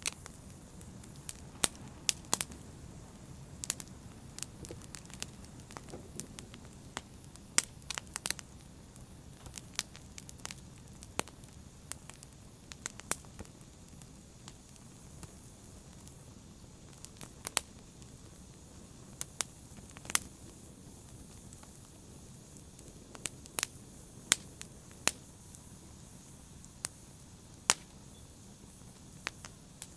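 Wood fire crackling in a fireplace: a steady low rush of flames with irregular sharp pops and snaps, roughly one or two a second.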